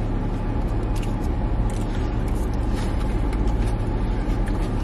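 Steady running hum of a car heard inside its closed cabin, with small wet clicks and smacks of someone chewing food close to the microphone.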